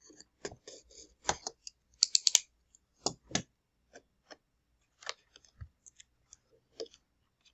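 Close-up handling of a paper pad and its wrapping: scattered crisp crinkles, taps and clicks, with a quick run of sharp snips about two seconds in.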